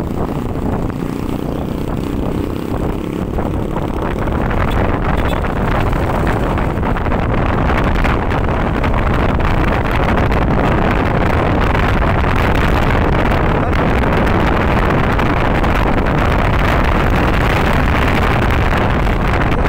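Wind rushing over the microphone, mixed with the engine and road noise of a Yamaha NMAX scooter being ridden. It grows louder about four seconds in, then stays steady.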